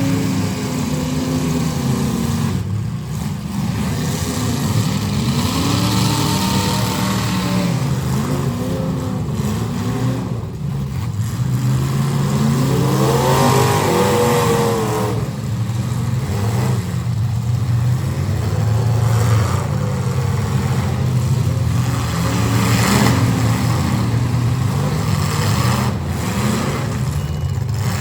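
Several full-size demolition derby cars' engines running together and revving hard, their pitches repeatedly rising and falling over one another.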